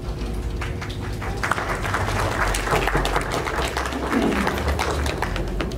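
A room of guests applauding: scattered claps build to full applause about a second and a half in, then die away near the end.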